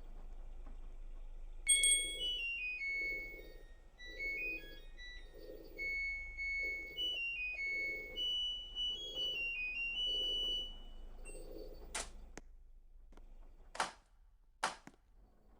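LG washing machine's electronic beeper playing a melody of high beeping notes for about ten seconds, followed by three sharp clicks near the end.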